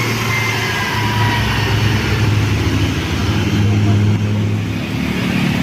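Diesel engine of a passing bus running, a steady low drone that is loudest about four seconds in and eases off shortly after.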